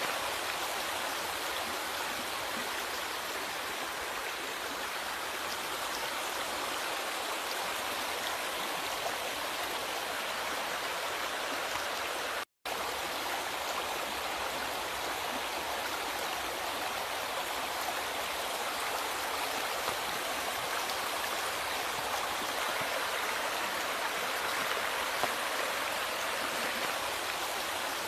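River water flowing steadily over rocks in an even rushing babble. The sound cuts out completely for a split second about halfway through.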